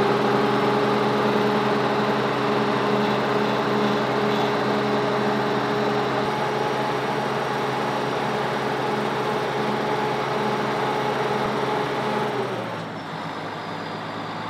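Crane truck's engine running steadily at raised revs, with a steady whining tone, while its hydraulics lift the boom and the hanging load; about twelve and a half seconds in the revs drop and it settles to a quieter, lower idle.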